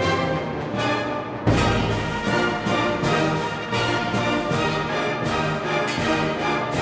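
Orchestral music with sustained chords, and a deep accented hit about a second and a half in.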